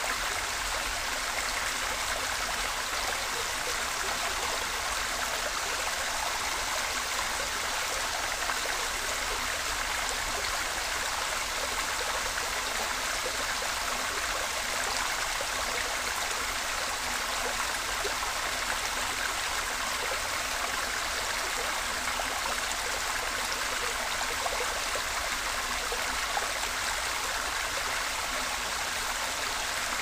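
Creek waterfall: water pouring and splashing in a steady, unbroken rush.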